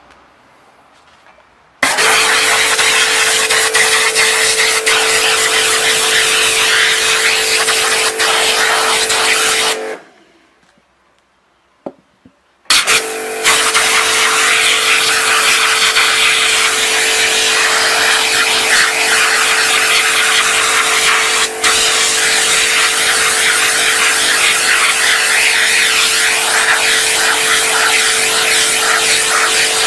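Pressure washer spraying a jet of water onto a screen-printing frame's mesh, rinsing off ink remover and haze-remover gel: a loud steady hiss of spray over a steady pump hum. It starts about two seconds in, stops for a couple of seconds about ten seconds in, then starts again.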